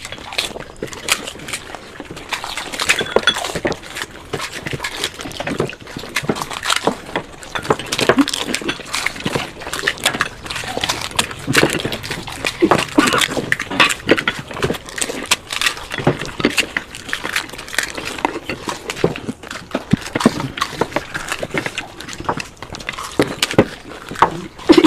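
Several people eating panipuri at speed, mouth close to the microphone: crisp hollow puri shells crunching, sour water slurped, and noisy chewing, in a dense, irregular stream of crunches and smacks.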